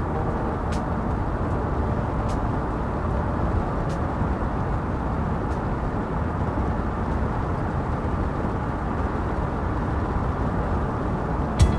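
Steady road noise from a car driving: a low, even rumble of tyres and engine.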